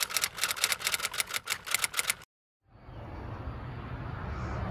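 Typewriter key-clack sound effect: a rapid, even run of about seven clacks a second that stops a little over two seconds in. After a brief moment of silence, a low, steady outdoor background noise follows.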